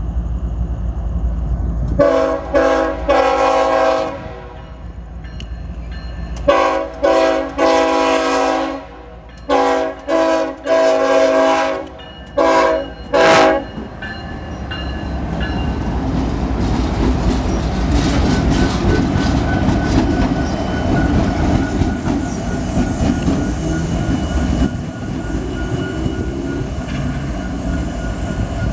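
A freight locomotive's multi-chime air horn sounds a rhythmic series of blasts for about twelve seconds: one long blast, then groups of short ones, like a cheer. After that the train's engines and cars roll past, with wheel clickety-clack and faint wheel squeal growing louder.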